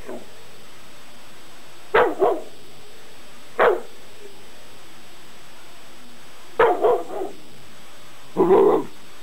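Eight-month-old dog barking in four short bouts. The first comes about two seconds in, and some bouts are two or three quick barks in a row.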